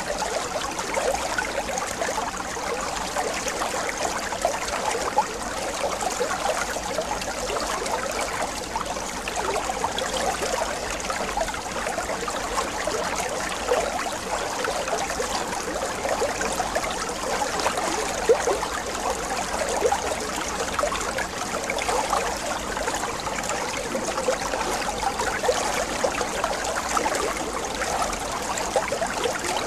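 Water trickling and splashing in fish holding tanks, a steady run of small uneven splashes.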